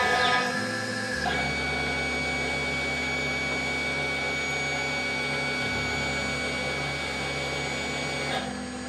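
6090 CNC router engraving a wooden board: the spindle and the gantry's stepper motors run with a steady whine. The pattern of tones changes about a second in and again near the end, as the machine's movement changes.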